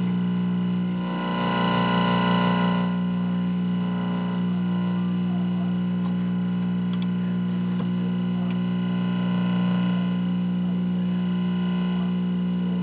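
Buzz from an RCA CTC28 colour television's speaker, with the volume all the way up and no signal: a steady, low buzz with many overtones. It is heard while the sound-detector coils are turned with an alignment tool for minimum buzz. A brighter tone swells about a second in and fades again by about three seconds.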